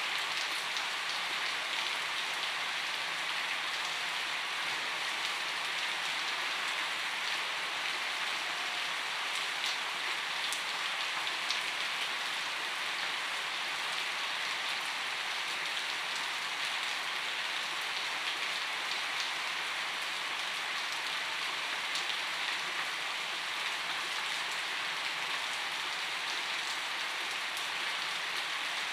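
Gentle rainfall: a steady, even hiss of rain with scattered single drops ticking now and then.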